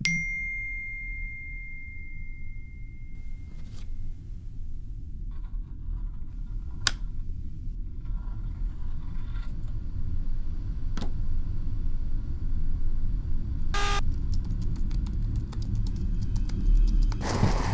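Horror-film sound design: a low rumbling drone that builds slowly. It opens with a single ringing tone that fades away, has a few sharp clicks scattered through it, and near the end carries a quick run of computer-keyboard typing.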